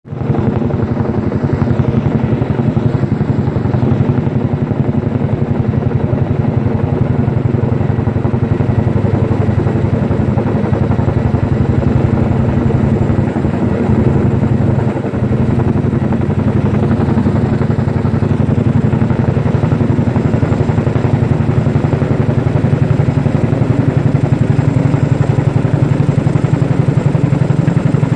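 Firefighting helicopter's rotor chopping rapidly and steadily, with a thin high whine over it, as it hovers low to dip water from the river.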